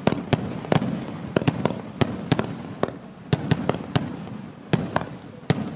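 Fireworks going off: over a dozen sharp bangs in quick, irregular succession, with a hissing haze between them.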